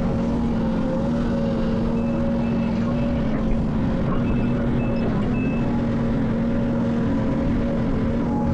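Heavy earthmoving machinery's diesel engine running at a steady, even pitch. Faint short high beeps come and go for a few seconds in the middle.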